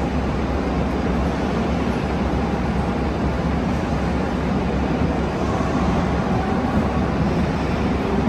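Container wagons of a long freight train rolling past on the station track: a steady noise of steel wheels running on the rails.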